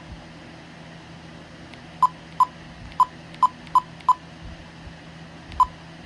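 Bosch alarm keypad giving short key-press beeps, all at one pitch: a quick, uneven run of six about two seconds in, then one more near the end, as keys are tapped. A faint steady hum sits underneath.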